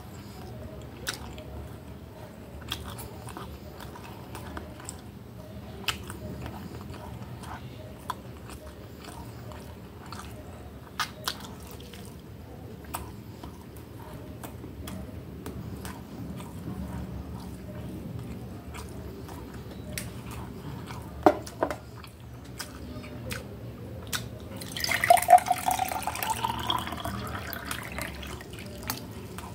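Close-up chewing and biting of a breaded chicken fillet, with soft, scattered mouth clicks. Near the end comes a louder few seconds with rising tones.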